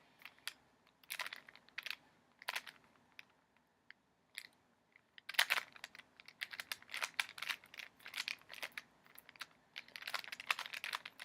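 Rubik's cube being turned by hand, its plastic layers clicking and clacking: a few scattered turns at first, then quick runs of turns from about five seconds in, while the white cross is being solved.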